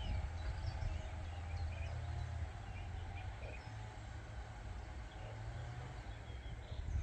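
Small songbirds chirping and singing in short, scattered calls over a steady low rumble.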